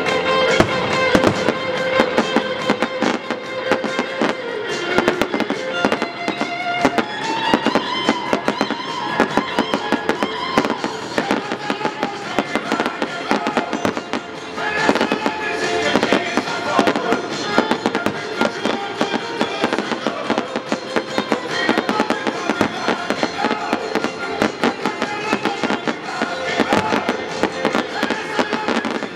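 Fireworks display: shells bursting and crackling in rapid, dense succession, easing briefly about halfway through, over music playing.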